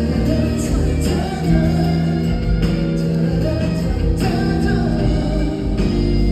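Live band music with guitar and a male lead singer's voice, heard from the audience seats of a concert hall.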